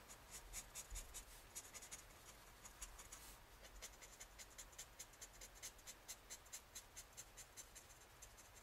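Felt-tip marker scratching faintly on sketchbook paper in quick side-by-side hatching strokes, a few strokes a second.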